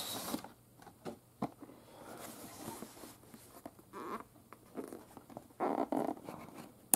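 Hands handling a small cardboard box: scattered scrapes, taps and rustles of cardboard being turned over and its lid worked open, with a sharp click near the end.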